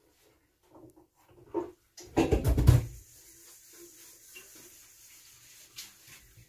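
A few light clicks and knocks of kitchenware being handled, with one short, loud clatter about two seconds in, then faint rubbing as a stovetop kettle is taken up with a sponge at the sink.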